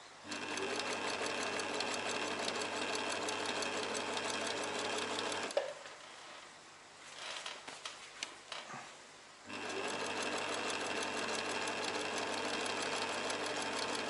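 Singer electric sewing machine stitching a hem in two steady runs of about five seconds each, the needle going up and down in a fast even rhythm. Between the runs it stops for a few seconds, leaving small clicks and fabric rustles as the cloth is repositioned.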